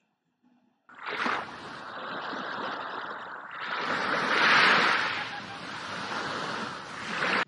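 Recorded sea surf: waves washing and breaking, starting about a second in, swelling to a loud crash about halfway through and cutting off suddenly at the end.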